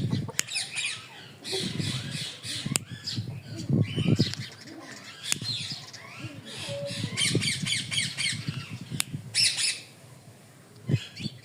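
Ringneck parakeet squawking and chattering in repeated bursts, with a fast run of sharp calls, about six a second, past the middle.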